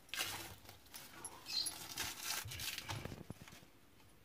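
Plastic film crinkling in several short bursts as it is pulled off a container, with a faint knock about three seconds in.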